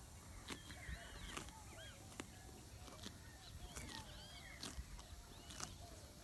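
Many birds chirping in short, arching, rising-and-falling calls. Sharp clicks come every half second or so, the sound of a grazing ox tearing grass.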